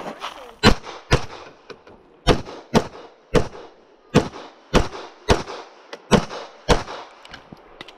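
Semi-automatic pistol fired in a string of about a dozen shots, roughly one every half second, with a couple of slightly longer pauses between groups.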